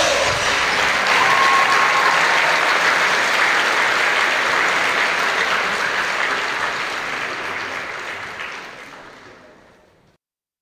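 Audience applauding in an auditorium after a dance number ends, the clapping dying down over the last few seconds and then cut off to silence just before the end.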